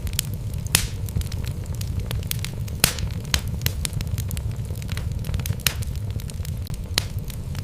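Wood fire burning in a fireplace: a steady low rumble of flames with irregular sharp crackles and pops from the logs, a few louder pops standing out.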